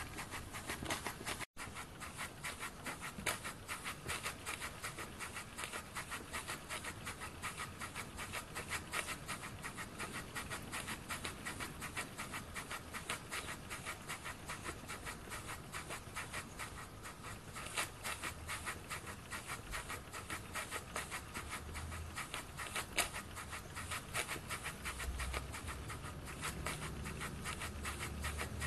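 RETROL kit model beam steam engine running steadily: a rapid, even patter of exhaust puffs and small mechanical clicks from the cylinder, valve gear and beam.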